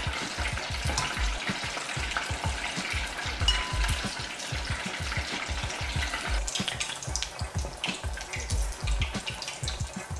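Battered chicken wings deep-frying in hot oil in a Fry Daddy electric deep fryer, the oil sizzling and crackling steadily.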